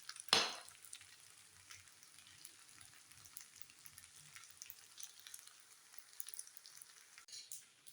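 Food sizzling on a hot griddle plate, with scattered light crackles. A sudden loud hiss just after the start fades within about half a second, and a smaller one comes near the end.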